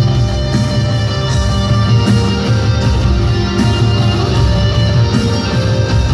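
Rock band playing live, with guitars over heavy, booming bass, recorded from the audience in a large arena.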